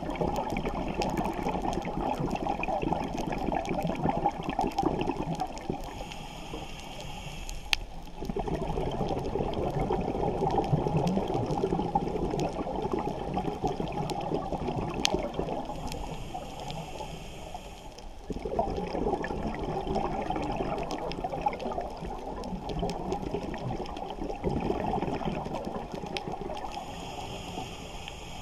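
Scuba diver breathing through a regulator, heard underwater. Exhaled bubbles rumble out in three long bursts, each followed by a short hissing inhale.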